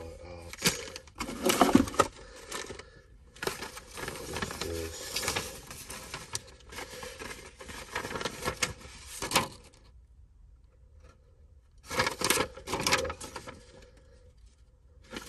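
Paper and plastic rustling and crinkling as things are handled and sorted out of a truck's centre console, with small clicks and knocks among them. The handling stops for about two seconds near the end, then starts again.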